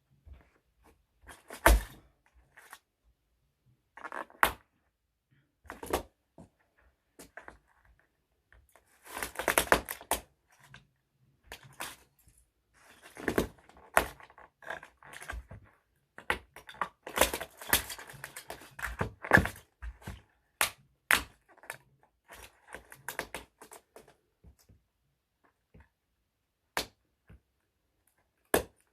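Small toy trucks being crushed: irregular sharp cracks and snaps, with longer spells of dense crunching about ten and eighteen seconds in.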